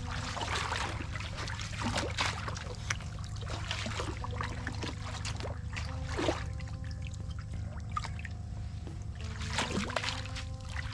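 Legs wading through shallow muddy water, with irregular splashes and sloshing as each step moves.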